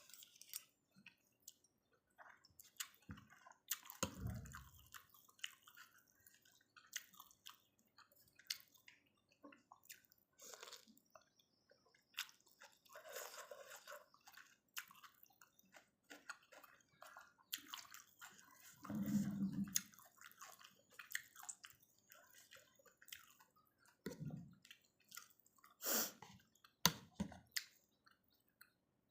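Faint, close-up chewing and wet slurping of pork noodle soup, with many small clicking mouth sounds and a few louder slurps or swallows scattered through.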